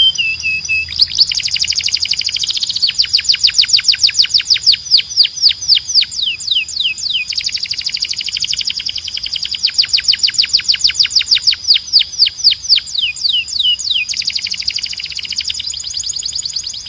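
Domestic canary singing a loud, continuous song made of rapid trills of quick falling notes, about ten a second, broken into repeated phrases. A steady high whistled tone runs underneath the trills.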